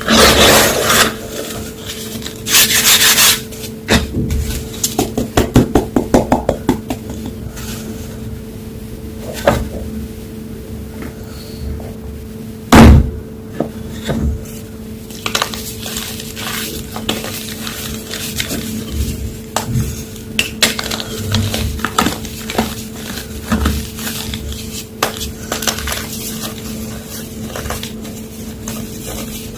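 Homemade gym chalk blocks being crushed, giving irregular dry crunches and crackles, with a quick run of crackles and a single loud snap about halfway through. A faint steady hum lies underneath.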